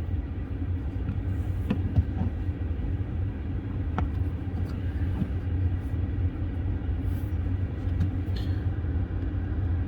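Steady whooshing hum of an electric car's cabin heater blower running with the heat set to 70, heard from inside the cabin, with a few light clicks and taps.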